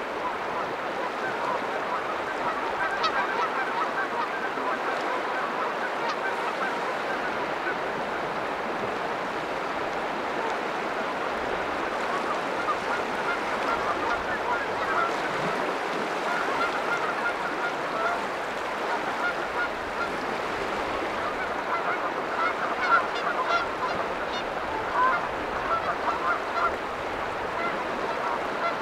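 A flock of birds calling, many short honking calls overlapping continually over the steady wash of water on the shore, with a few sharp clicks.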